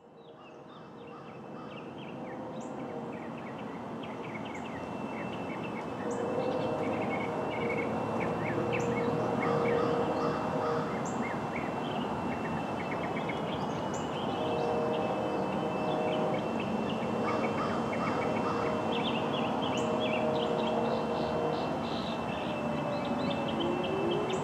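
Outdoor ambience: a steady background hiss with birds chirping on and off. About a second before the end, an outdoor warning siren starts winding up: two tones rising in pitch.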